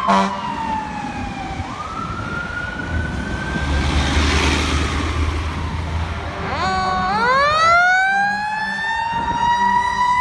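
Fire truck sirens. One winds down and back up early on, and a low diesel rumble passes in the middle. About six and a half seconds in, a siren winds up steeply and holds a steady high wail.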